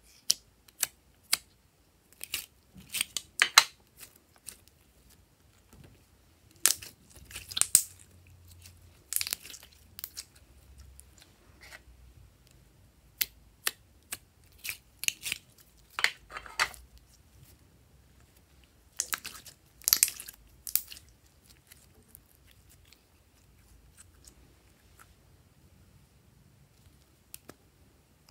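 Soft pink plastic slime container being squeezed and flexed by hand, crackling and clicking in irregular clusters as the slime is pressed out.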